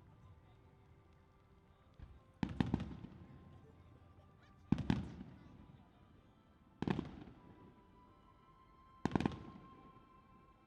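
Four aerial firework shells bursting, about two seconds apart. Each gives a sharp boom that trails off in a brief rumble.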